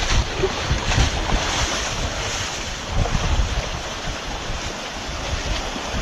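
Tropical-storm wind gusting hard against the microphone in uneven low rumbles, over a steady rushing hiss of waves crashing on the shore.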